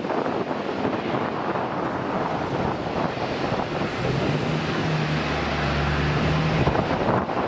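Airbus A320 jet engines roaring steadily as the airliner rolls along the runway, mixed with wind buffeting the microphone. A steady low hum joins in for a couple of seconds in the second half.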